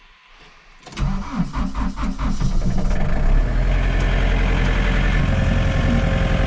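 John Deere 4520 compact tractor's diesel engine being started, heard from inside the cab: the starter cranks about a second in, the engine catches within a couple of seconds and settles into a steady idle.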